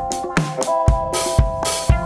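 Upbeat background music with drums, a beat about every half second under held notes.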